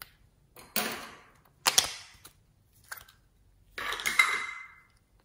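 A small plastic tub of soft modelling clay being opened and the clay handled: four sharp plastic snaps and rustles. The last one is longer, with a brief squeak.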